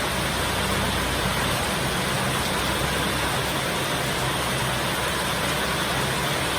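Heavy rain falling steadily, an even unbroken hiss with a low steady rumble underneath.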